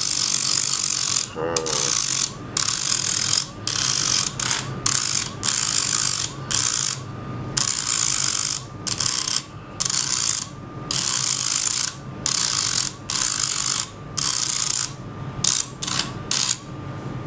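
Small handheld rotary tool running with a steady whine while its abrasive bit grinds against the metal core of a 12 V water-pump motor's rotor to clean it. The grinding comes in repeated scraping strokes broken by short pauses, and each time the bit lifts off, the motor's whine briefly picks up speed.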